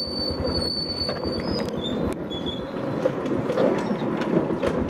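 Rumble and rattle of a moving vehicle, with a thin high whine over roughly the first second and a half and two short high chirps just after it.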